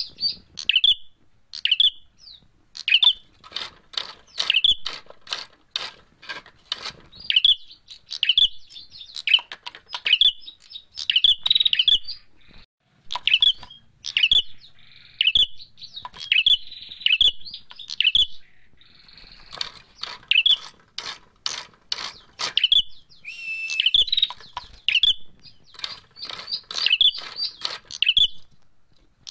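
Caged prenjak merah calling in agitated, fighting mode: sharp high chirps repeated in fast runs with short gaps, mixed with sharp clicks.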